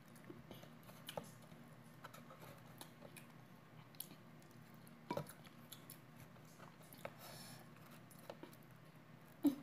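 Faint eating sounds: chewing, with scattered light clicks and taps of a metal spoon against mussel shells and the plate. A sharper click comes about five seconds in and another near the end.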